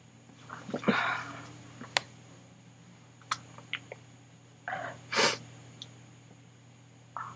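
A woman sneezing twice during a sneezing attack, once about a second in and again about five seconds in. Each sneeze comes after a short catching breath, and a brief gasp comes near the end.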